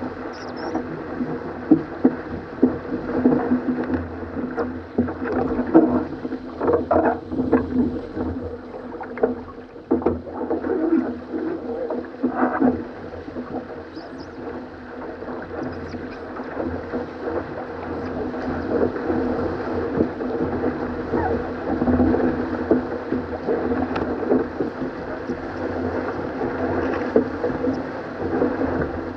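Weta trimaran planing fast through choppy water: a steady rush of water along the hull, broken by frequent sudden splashes of spray.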